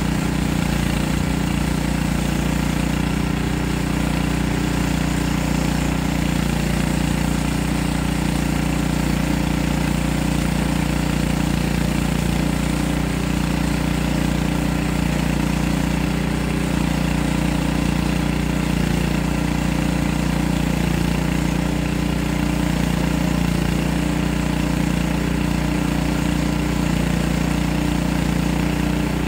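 Small gasoline engine of a portable bandsaw sawmill running steadily at an even speed.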